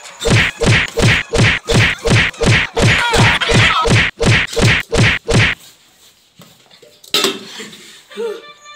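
A rapid run of about sixteen whacks, roughly three a second, a comedy beating sound effect, stopping about five and a half seconds in. One more sharp thump comes about seven seconds in.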